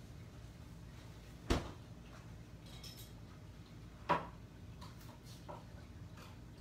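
Two sharp knocks about two and a half seconds apart, with a few fainter clicks between: kitchen things being handled, like a cupboard door shutting or a pan being set down.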